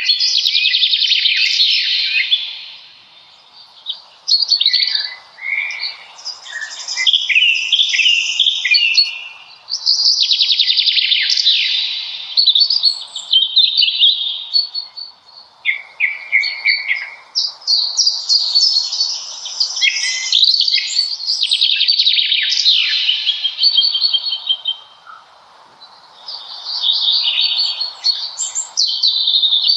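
Songbirds singing close by: long phrases of rapid, quick-changing high notes, each a few seconds long, following one another with short pauses, over a faint steady background hiss.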